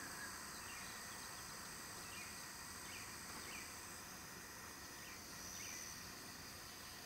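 Faint field ambience: insects droning steadily on several high pitches, with short falling chirps every second or so.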